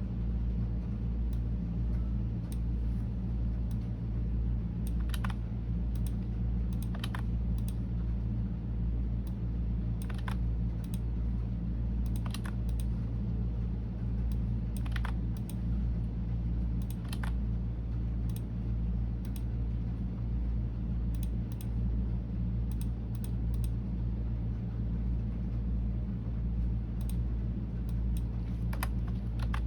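Computer keyboard typing: irregular, unhurried keystrokes, sometimes a few in quick succession, over a steady low hum.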